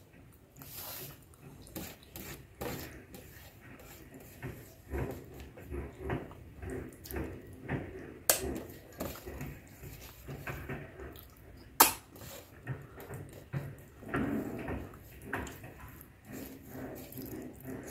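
Close-miked mouth sounds of eating soft khichdi by hand: wet chewing and lip smacking, with fingers gathering food across a steel plate. Two sharp clicks stand out, one about eight seconds in and one about twelve seconds in.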